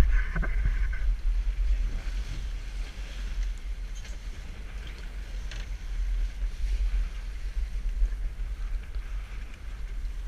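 Center-console fishing boat under way on open sea, its twin Evinrude outboards running: a steady low rumble of motors and hull on the water, with wind buffeting the microphone.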